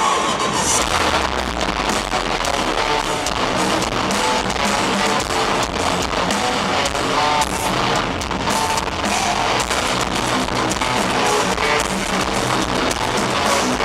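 Live rock band playing loud, distorted electric guitars over a drum kit, recorded from the crowd with harsh, muddy sound.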